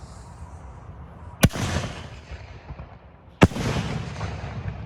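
A 5-inch black canister firework shell going off: two sharp bangs about two seconds apart, each trailing off in a rolling rumble.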